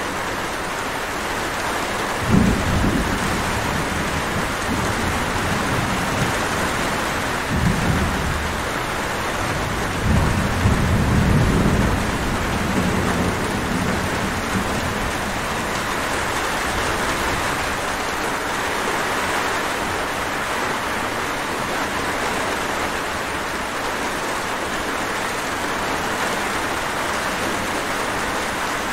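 Steady, heavy rainfall, with low rumbles of thunder: a short one about two seconds in, another around eight seconds, and a longer rolling one from about ten to thirteen seconds in.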